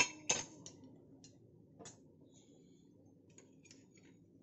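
Stainless steel kitchen utensils clinking: a spoon and small bowls knocking against a steel kadai and plate. There are two sharp clinks at the start, a few fainter ones over the next two seconds, and a small cluster near the end.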